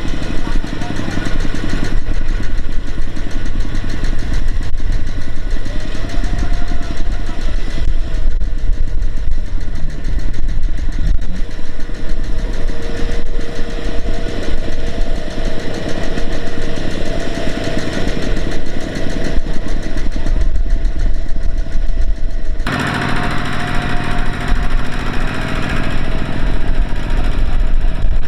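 A heavy machine's diesel engine running steadily and loudly. Its sound changes abruptly near the end.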